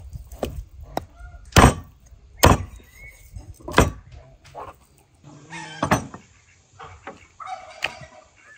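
Sharp knocks and thuds on a wooden chopping board as a lamb carcass is cut up with a knife, about six in all, the loudest in the first four seconds. Poultry call in the background.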